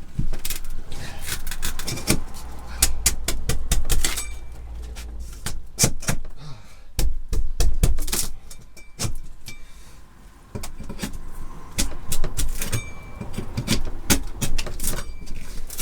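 Irregular knocks, taps and metallic rattling, some in quick clusters, from hands and tools working at the camper's rotten wooden interior wall and its loose screws and nails, over a low rumble.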